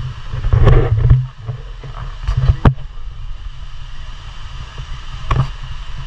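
Steady low wind rumble on the microphone over an even rushing hiss, broken by a few sharp knocks about a second, two and a half and five seconds in.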